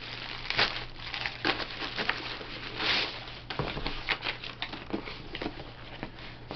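Packaging being handled as a new impact wrench is brought out: irregular crinkling and rustling with scattered light clicks and knocks.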